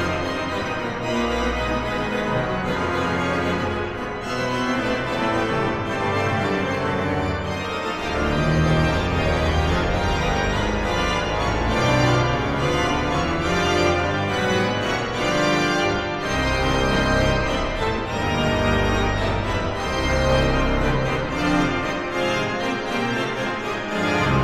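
Large pipe organ playing live: loud, dense chords over a heavy pedal bass.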